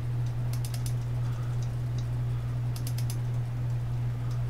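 Computer keyboard typing in two short bursts of rapid key clicks, with a few single clicks between, over a steady low electrical hum.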